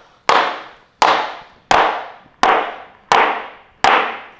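Rubber mallet striking a laminate floor plank to seat its click-lock joint: six evenly spaced knocks a little under a second apart, each ringing out briefly.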